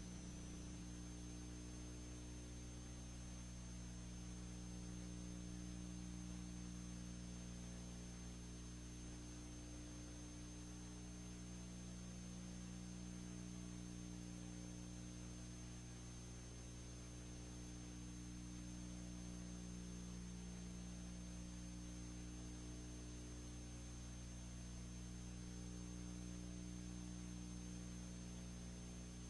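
Steady low electrical hum with a constant thin high whine over a faint hiss, unchanging throughout: the noise of the film transfer rather than any recorded scene sound.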